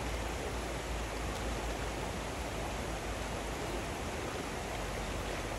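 Shallow stream rushing over rocks: a steady, even water noise.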